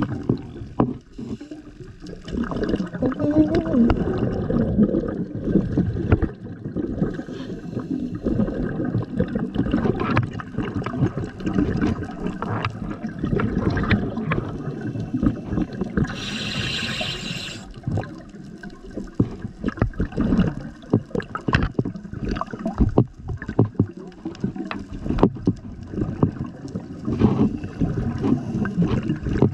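Underwater recording of a scuba diver's breathing: long stretches of crackling, gurgling exhaled bubbles from the regulator, broken once about halfway through by a short hiss as the diver inhales.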